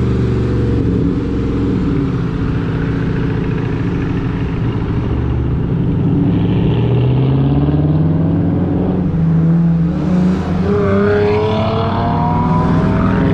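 Muscle car engine revving, its pitch climbing as it accelerates, with a whine that rises steadily over the last few seconds.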